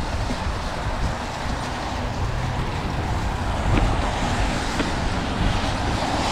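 Steady wind and tyre noise from a mountain bike riding fast down a wet, muddy dirt trail, with low buffeting on the microphone.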